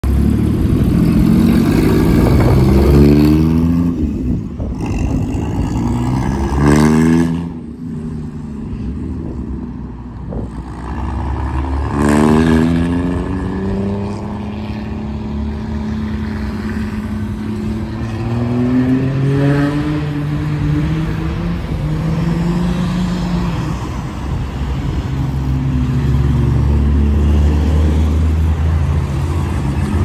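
Armstrong Siddeley Lancaster's engine accelerating hard away, its pitch climbing through the gears several times, each climb ending in a drop as it changes up, then running more steadily in the later part. Loud throughout, loudest in the first few seconds.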